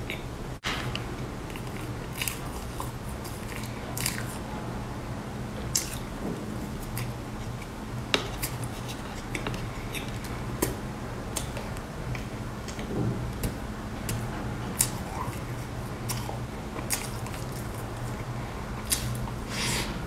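Close-miked chewing and mouth sounds of someone eating a soft layered sponge cake with cream, with many short lip smacks and clicks scattered throughout. A steady low hum runs underneath.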